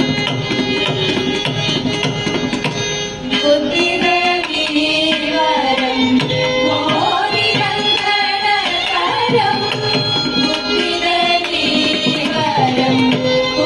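Carnatic devotional music: a mridangam plays a steady rhythm with violin accompaniment. About three and a half seconds in, a group of women's voices joins, singing together.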